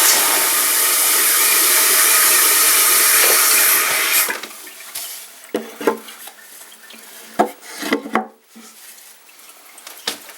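Fluidmaster 400A toilet fill valve hissing as the tank refills, shutting off abruptly about four seconds in as the water reaches its set level. Several light knocks and clatters follow.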